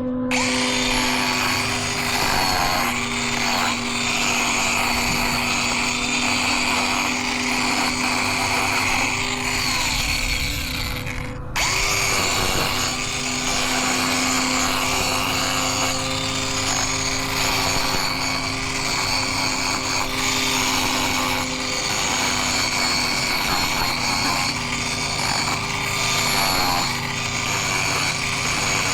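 Mini angle grinder running steadily as it trims a miniature horse's hoof, its pitch sagging now and then. The sound breaks off for an instant about eleven seconds in.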